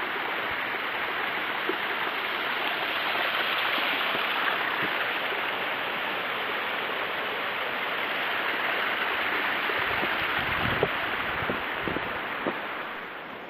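Mountain stream rushing steadily, with a few low thumps about ten seconds in; the water fades somewhat near the end.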